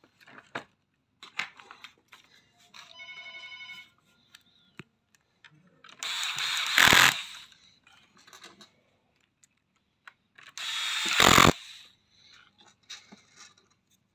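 Electric screwdriver driving screws into a robot vacuum's plastic chassis, in two runs of about a second each, each getting louder toward its end, with small handling clicks between.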